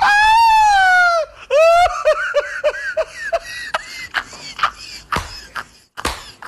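A man laughing hysterically: a loud, high-pitched shriek of laughter about a second long, then a run of short falling 'ha-ha' bursts, then a string of hand claps.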